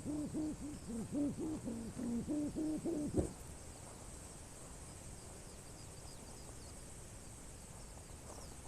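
Kite hummer (sanu) with a plastic blade on a 140 cm bow, droning in the wind with a wavering pitch that pulses about four times a second. It cuts off suddenly about three seconds in, leaving only a faint background.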